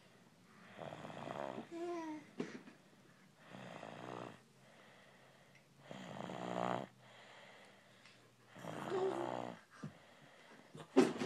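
Snoring: about five snores, one every two to three seconds, several with a wavering, whistling tone.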